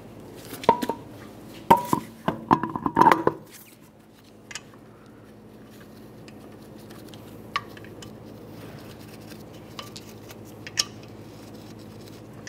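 Car wheel being lifted onto the hub studs, a quick series of sharp metallic clanks with a short ring in the first few seconds, then a few light clicks as lug nuts are started on the studs by hand.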